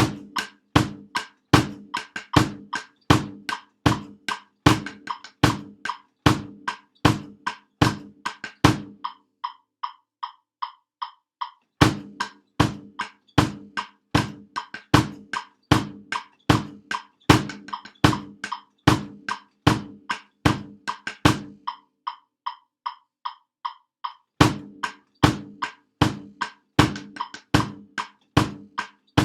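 Snare drum and bass drum playing a steady, evenly paced band part. Twice, for a few seconds each, the fuller strokes drop out and only lighter, higher taps keep the beat.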